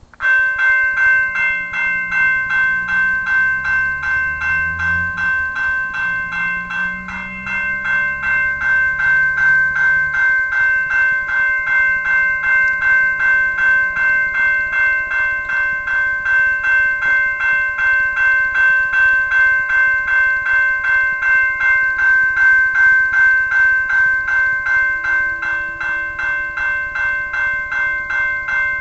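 Railway level-crossing warning bell, sounding as the crossing signals activate for an approaching train. It starts abruptly and rings steadily and rapidly without a break. A lower sound lies under it for about the first ten seconds.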